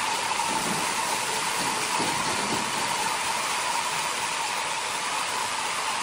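Large industrial horizontal band sawmill running, a steady even rushing noise with a steady whine over it.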